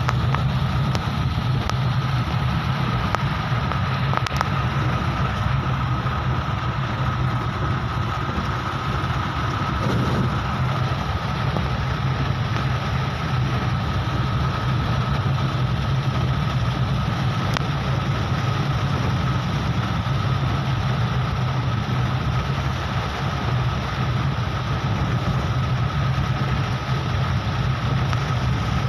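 Steady drone inside a moving car's cabin on a rain-flooded road: low engine hum under an even hiss of tyres and rain, with a thin steady whine over it.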